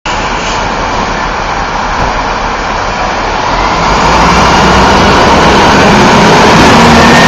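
Loud steady traffic noise, growing louder about three and a half seconds in.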